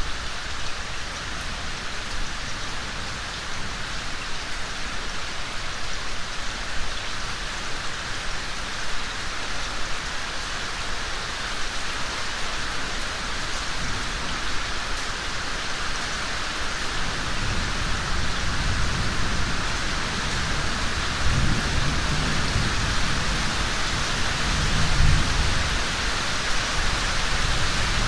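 Steady rain falling and hissing. Past the middle a low rumble of thunder builds, swells and fades away.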